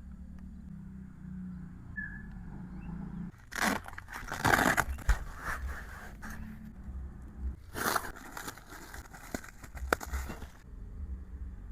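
Packaging being handled and torn open, crinkling and crackling in two spells: the first starts about three and a half seconds in, the second about eight seconds in.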